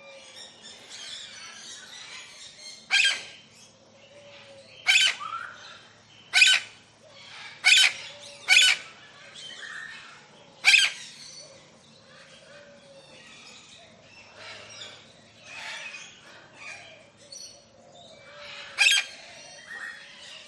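Tropical forest birds calling: about seven loud, short, harsh calls at irregular intervals, most in the first half, over a background of softer chirps and whistles.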